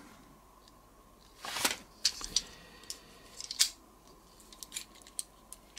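Small GoBot toy robot car being handled and its parts moved by hand: a short rustle about a second and a half in, then scattered light plastic clicks and taps.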